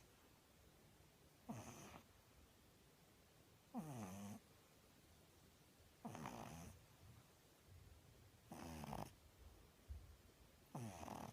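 Pug puppy snoring in its sleep: five short, soft snores at an even pace, about one every two and a half seconds.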